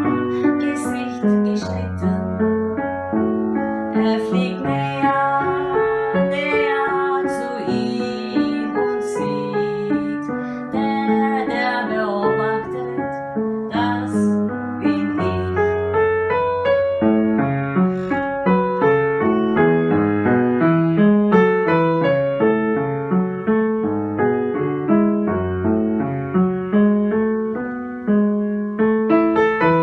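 Piano music: a slow melody over sustained low bass notes.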